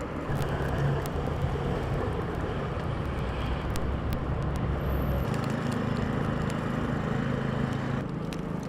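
A motor vehicle's engine running with a steady low hum over street noise; its pitch shifts slightly about five seconds in.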